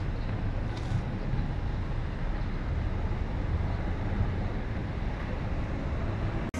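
Steady low rumble of a moving vehicle, with wind noise on the microphone. It cuts off abruptly near the end.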